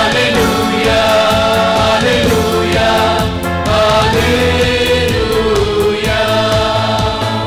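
Mixed choir of men and women singing a church hymn together, holding long notes.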